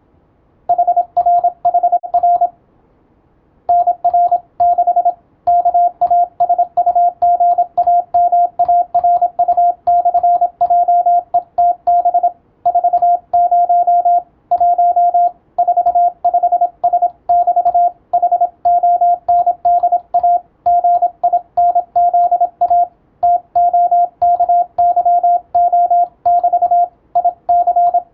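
Morse code (CW) sent as a single steady beep tone keyed on and off in dots and dashes, with short breaks between words and a longer break about two seconds in.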